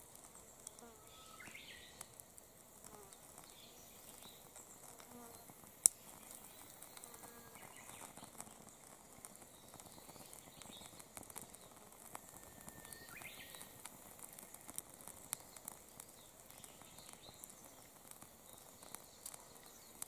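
Faint, quiet crackling from a small flame burning a rubber strap, heard as light scattered ticks over a low hiss. One sharp click about six seconds in, and a couple of faint short chirps.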